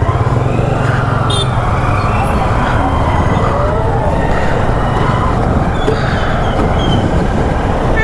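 Royal Enfield Himalayan's single-cylinder engine running steadily under way, a fast, even low thudding of exhaust pulses, with street traffic noise around it.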